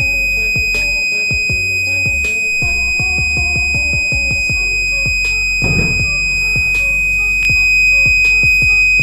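A buzzer sounds one steady, unbroken high-pitched alarm tone over background music. It is the alert of the gas sensor's smoke/alcohol detection circuit, signalling that smoke has been detected and the motor cut off.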